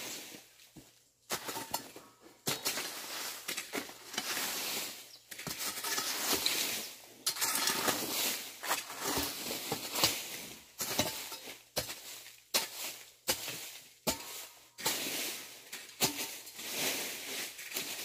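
Hoe chopping and scraping through weeds and dry soil in repeated strokes, roughly one a second, each a short crunching scrape.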